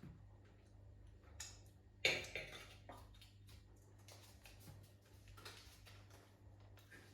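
Scattered small clicks and a sharper knock about two seconds in, over a steady low hum.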